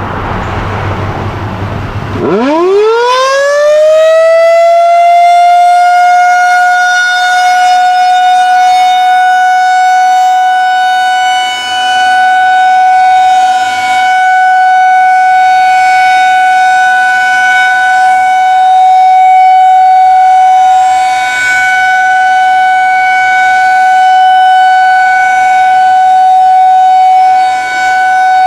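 Federal Signal 2001-DC Roundback tornado siren starting its test: about two seconds in it winds up quickly from a low growl to a loud, steady single-pitch wail, which then holds. The loudness dips briefly every ten seconds or so as the rotating siren turns.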